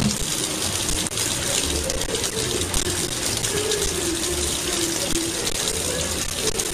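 Kitchen tap running a thin stream of water into a sink, a steady splashing hiss.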